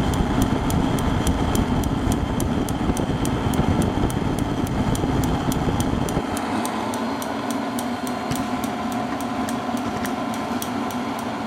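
Propane forced-air heater running, its fan slowed on a dimmer: a steady rush of burner and fan with the piezo igniter ticking about four times a second. The low rumble drops off sharply about six seconds in.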